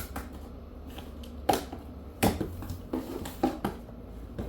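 Cardboard box and packaging handled while being opened: a few sharp clicks and knocks, the loudest about a second and a half and two seconds in.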